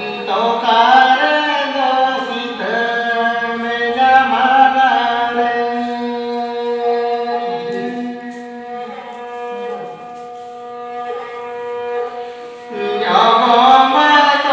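A man singing a Santali dong song in phrases to his own bowed folk fiddle, the fiddle holding a steady pitch under the voice's melody. The phrases ease off in the middle and a louder new phrase starts near the end.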